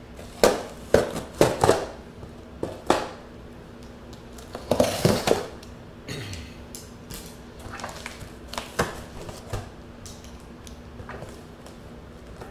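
Scissors working at the packing tape on a cardboard box: sharp clicks and scrapes of the blades, several in quick succession, then a longer rasping scrape about five seconds in, followed by lighter taps and scrapes. These are the kind of scissors whose blades come apart.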